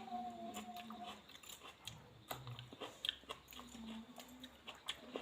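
Close-up chewing of a home-cooked meal of dal and rice, with many small irregular crunches and mouth clicks.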